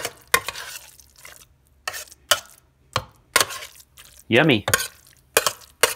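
Metal spoon mashing soft cooked cauliflower in a stainless steel bowl: a run of short scraping strokes against the bowl, about two a second.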